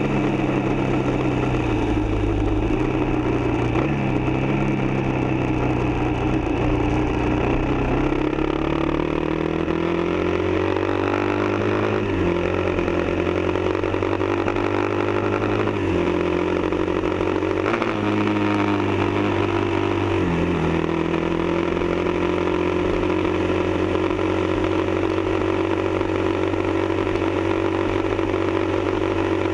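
Kawasaki KLR dual-sport motorcycle's single-cylinder engine under way, its pitch climbing and then dropping abruptly a few times in the middle as it shifts up through the gears. In the last third it holds steady revs at a cruise.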